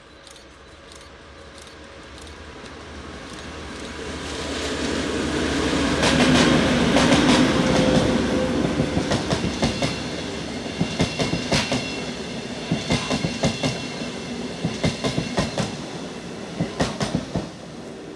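Russian Railways train, a TEP70BS diesel locomotive with the ES1P Lastochka electric multiple unit, approaching and passing. A rising rumble peaks about six to eight seconds in. Then the wheels clack over rail joints in quick groups as the carriages roll by, fading toward the end.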